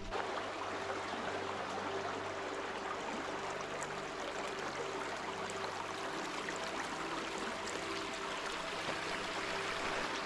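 Stream water flowing, a steady rushing hiss.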